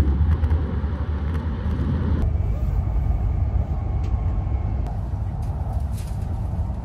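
Steady low rumble and hiss of a Shinkansen train running, heard from inside the passenger cabin. About two seconds in, the higher hiss drops away suddenly, leaving mostly the low rumble.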